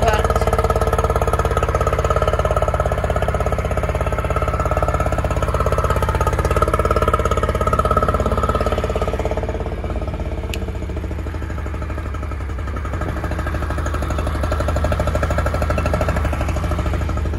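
40 hp Yamaha two-stroke outboard engine running steadily on a garden-hose flush, dipping slightly in level about ten seconds in.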